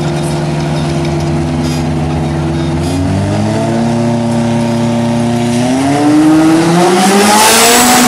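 Diesel semi-truck racing engines running steadily at the start line. The revs step up about three seconds in and again near six seconds, then climb and get louder as the trucks launch down the drag strip near the end.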